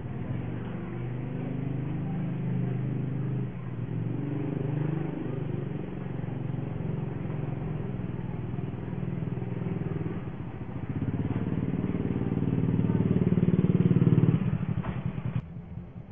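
Small motorcycle engine running, growing louder as it approaches, then dropping off sharply near the end.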